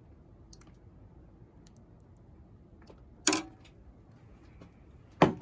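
Two sharp metallic clanks about two seconds apart, each with a brief ring: a metal ladle knocking against a stainless steel cooking pot while sauce is served.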